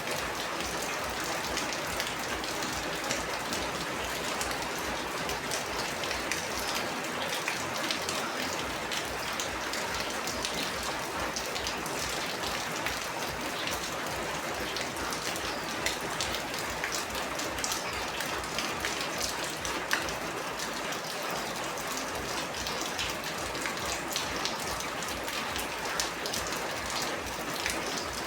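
Heavy rain falling steadily, a dense hiss of rain with many small sharp drop impacts on surfaces.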